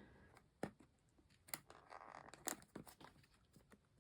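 Faint clicks and a soft rustle of a hard plastic toy capsule being handled and forced at, a tight-fitting capsule that is very hard to open.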